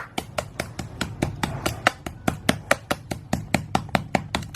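A block of ice being chipped with a hand tool: a fast, even run of sharp strikes, about five a second.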